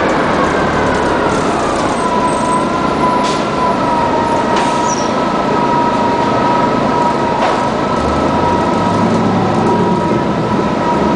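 1999 Orion V CNG bus, with its Detroit Diesel Series 50G natural-gas engine and Allison B400R transmission, running under way. A drivetrain whine drops in pitch over the first two seconds as the bus eases off, then holds steady over a low rumble. A few sharp knocks and rattles come through along the way.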